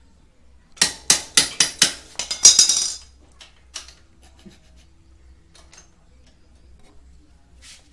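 Metal being struck: a quick run of about six sharp, ringing taps, then a dense flurry of clinks that stops about three seconds in, followed by a few faint ticks.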